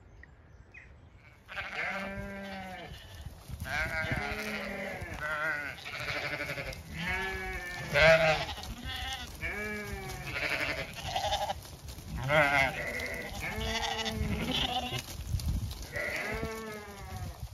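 Zwartbles sheep bleating over and over: a dozen or more loud, wavering calls from several animals, one after another and sometimes overlapping, starting about a second and a half in.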